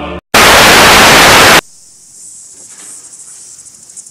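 Music cuts off, and after a brief gap a loud burst of white-noise static lasts about a second before stopping abruptly. A faint steady hiss follows.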